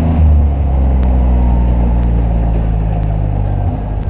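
Kawasaki Mule utility vehicle's engine running steadily at low speed, close to the microphone.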